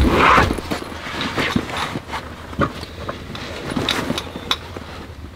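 Camping gear handled at the back of an SUV: a loud rustle of a puffy bag being pulled out of the cargo area near the start, then scattered clicks and knocks of a backpack and its straps being lifted and put on.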